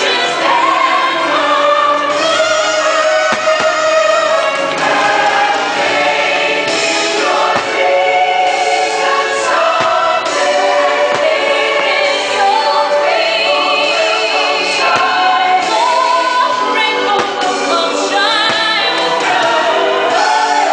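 Fireworks-show soundtrack music with a choir singing, loud and unbroken.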